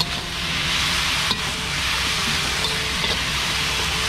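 Durian flowers sizzling as they are stir-fried in a wok, with a steady frying hiss over a low hum. A metal spatula scrapes and knocks against the pan right at the start and again about a second in.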